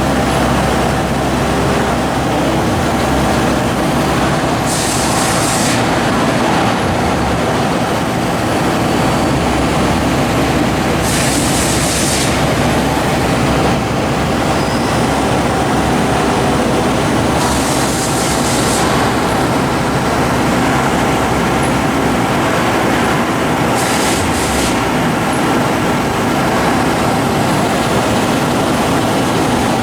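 Miyano JNC-45 slant-bed CNC lathe running under power: a loud, steady mechanical drone with a hum. A short hiss recurs about every six seconds.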